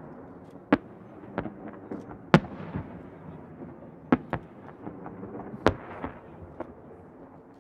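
Aerial fireworks shells bursting: about half a dozen sharp bangs, irregularly spaced, the loudest a little over two seconds in. Each bang trails off in a rolling echo, and a low rumble carries on between them.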